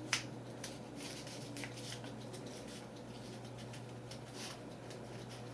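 Faint rustling and small clicks of hands pressing a strip of masking tape onto 35 mm film to join two film ends, with a sharper click just after the start. A low steady hum runs underneath.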